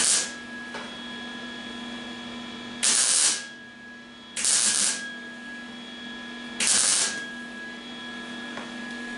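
Welding arc on the thin sheet-steel front valance of a 1974 MGB: four short tack-weld bursts of crackling hiss, about half a second each, with a steady hum between them. The welder is turned down for the thinner metal, and the arc sounds a lot better, after trouble getting a good ground.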